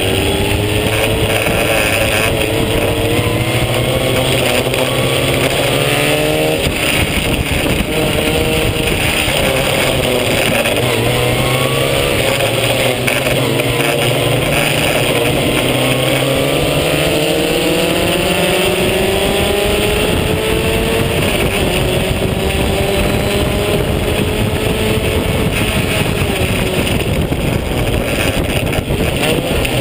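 Vintage open-wheel race car's engine, heard onboard, running at full throttle. Its pitch climbs through each gear and drops at the shifts, about 7, 11 and 21 seconds in.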